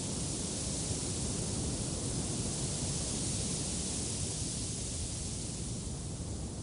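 Steady wind noise, an even hiss that swells a little in the middle and eases near the end.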